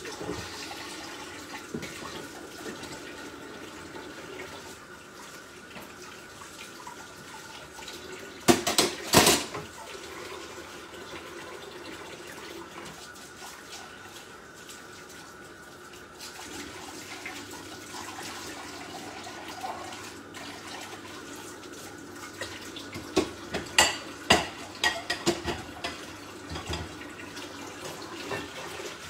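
Water running from a kitchen tap into a sink, with pots and utensils being washed: a loud clatter about a third of the way in and a run of sharp knocks near the end.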